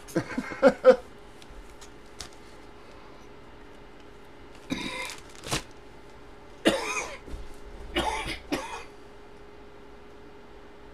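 A man coughing and clearing his throat in several short bursts a few seconds apart, over a faint steady hum.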